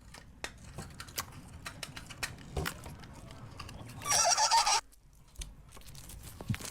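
Iceberg slime being squeezed and worked: a run of small sticky clicks and pops, then about four seconds in a louder, wavering pitched squeak lasting under a second.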